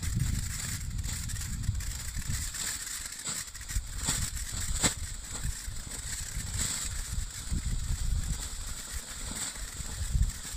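Weco Knisterteufel firework fountain with red blinkers burning: a steady hiss of spraying sparks with irregular crackles, and one sharper crack about five seconds in. A steady low rumble runs underneath.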